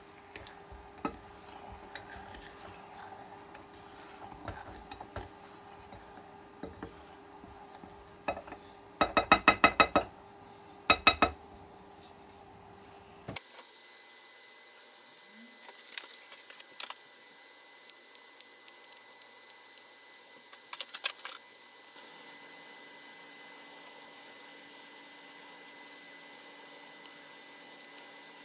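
Kitchen utensils and cookware clinking, with a quick run of sharp ringing taps about nine seconds in and three more a moment later, then scattered lighter clicks; a faint steady hum later on.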